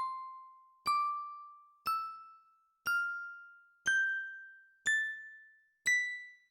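Bell tones struck one at a time, about once a second, seven notes climbing step by step up a scale through about an octave. Each note rings briefly and dies away before the next.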